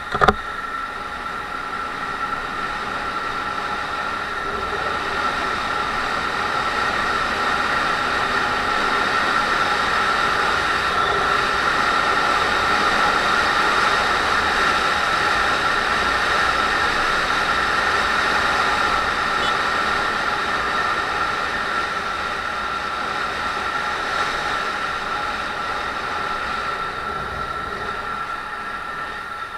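Wind rushing over the camera microphone with the steady drone of a Honda MSX125's single-cylinder engine while riding, growing louder over the first dozen seconds as the bike picks up speed and easing off toward the end. A single sharp knock right at the start.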